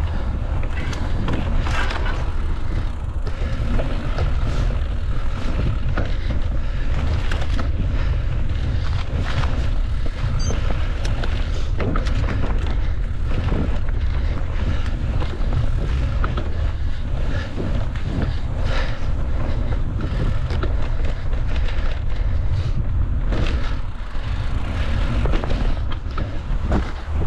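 Mountain bike ridden over a rough trail: a steady low rumble of wind and rolling noise on the microphone, with frequent clattering knocks from the bike over bumps.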